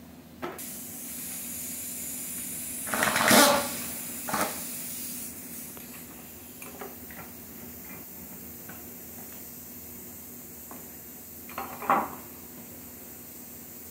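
Metal tools clattering during an engine teardown over a steady hiss. The loudest clatter comes about three seconds in, a shorter one follows a second later, and another comes near the end as tools are handled in a plastic tool box.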